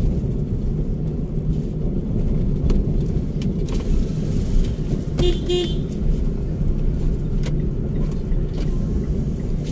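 Steady engine and road noise inside a moving Mitsubishi car. About halfway through, a car horn gives a short double toot.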